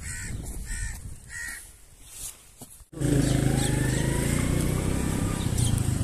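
Three short faint sounds, then, after an abrupt cut about three seconds in, a water buffalo lowing: one long, deep call, much louder than what came before.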